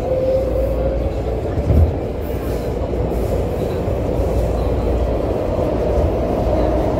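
Metro train running, heard from inside the passenger car: a steady low rumble of the wheels on the track with a faint whine above it, and a low thump about two seconds in.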